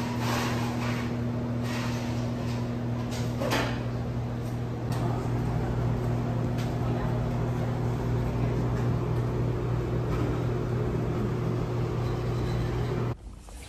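Room tone of a small shop: a steady low hum with faint voices and a few light knocks and clatters. It cuts off abruptly shortly before the end.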